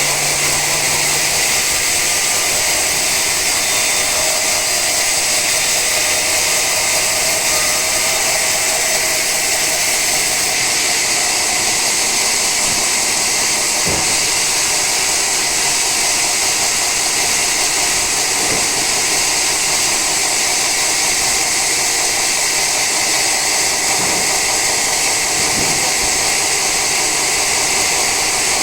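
Sawmill saw cutting through an old teak log: a steady, loud machine noise with a strong high-pitched edge, with a few faint knocks now and then.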